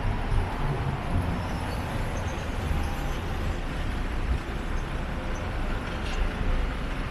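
City street traffic: a steady wash of vehicle engines and tyre noise with a heavy low rumble.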